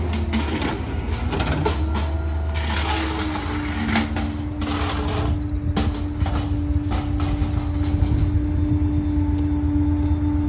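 Rear-loader garbage truck's engine running, with knocks and clatter of trash and a metal wire bin being dumped into the hopper. About three seconds in, a steady whine joins as the hydraulic packer runs.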